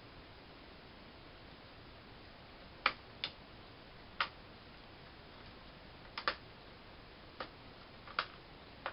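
Plastic snap clips of a Toshiba Satellite L305 laptop's screen bezel popping and clicking as the bezel is pressed into place: about eight sharp, irregular clicks starting about three seconds in. The clicking is normal and shows the bezel seating.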